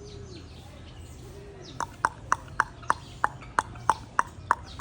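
A person clicking their tongue in a steady rhythm, about three sharp clicks a second starting about two seconds in, trying to get the animals' attention.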